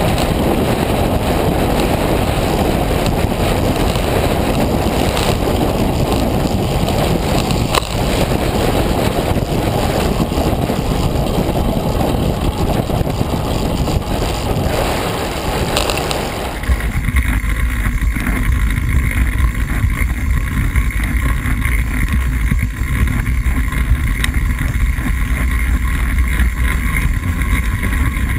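Steady rush of wind over an onboard action camera's microphone on a track bicycle racing around a wooden velodrome. About sixteen seconds in, the noise suddenly changes to a deeper rumble and stays that way.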